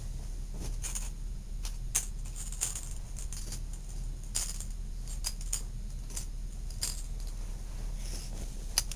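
Scattered light clicks and clinks of small hard objects being handled, over a steady low hum.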